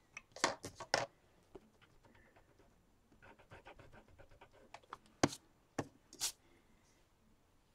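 A plastic eraser scrubbed over drawing paper in a quick run of short, scratchy strokes around the middle. Scattered sharp taps and clicks from handling the drawing tools come before and after, the loudest just after five seconds in.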